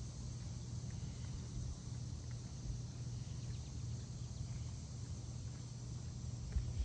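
Quiet outdoor background: a steady low rumble with faint scattered ticks.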